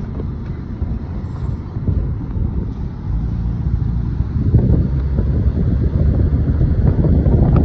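Car driving, with road rumble and wind buffeting the phone's microphone: a steady low rumble that grows louder about halfway through.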